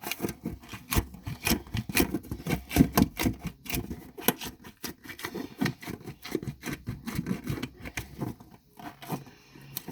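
Small plastic toy pieces being fiddled with by hand: a fast, irregular run of clicks, taps and scrapes that thins out near the end.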